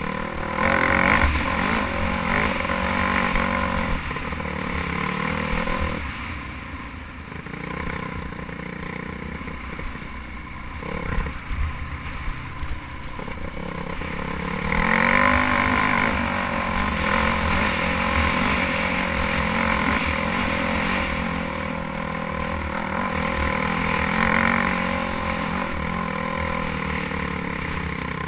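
Dirt bike engine riding under load, its revs climbing as the throttle opens about a second in, again around halfway and near the end, and easing off in between. Wind buffets the microphone throughout, and a few sharp knocks come around the middle.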